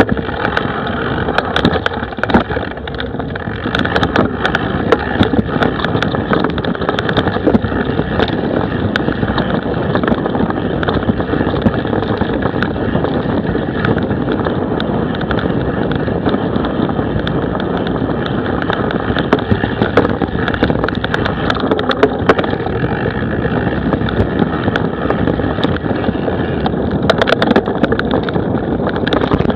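Mountain bike ridden over a rough grassy forest trail, heard from on the bike: a steady rushing rumble of tyres and riding, with frequent sharp knocks and rattles as the bike goes over bumps.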